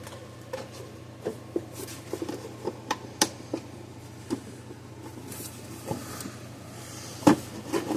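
Plastic housing of a fence charger being handled and fitted back together: scattered light clicks and knocks, with one sharper knock about seven seconds in, over a steady low hum.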